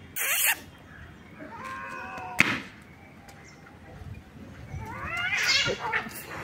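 Cats in a standoff: a short, sharp hiss near the start, drawn-out wavering yowls with another hiss about two and a half seconds in, and a longer, louder screeching yowl at about five seconds as the cats come to grips.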